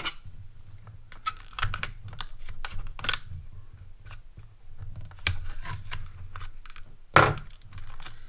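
Hard plastic blister packaging being worked open by hand: a run of irregular clicks, snaps and crackles, with the loudest snap about seven seconds in.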